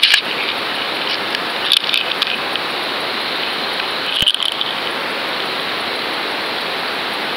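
Steady rushing hiss of water heard through an underwater camera as it moves, with three brief clattering bursts: one at the start, one about two seconds in and one about four seconds in.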